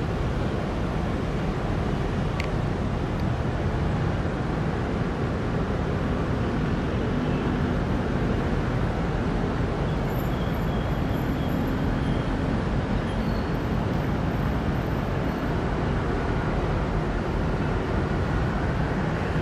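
Steady distant city traffic rumble, an even low wash of sound with no single vehicle standing out.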